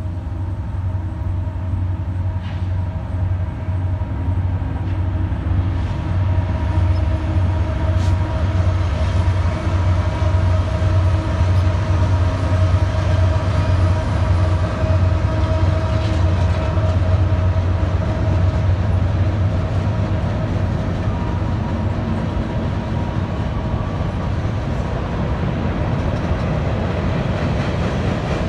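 Freight train pulled by two Canadian Pacific diesel locomotives crossing a steel trestle, with a steady low engine drone under load and the rumble of the covered hopper cars following. The sound grows a little louder about six seconds in as the locomotives come onto the bridge.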